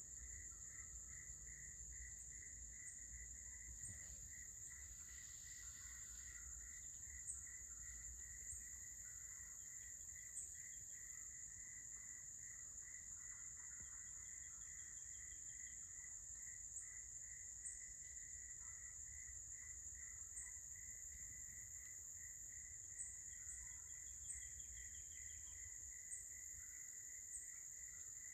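Faint chorus of insects: a steady high-pitched drone over a lower, rapidly pulsing trill. Short high chirps come every second or two, and a few faint bird trills are heard now and then.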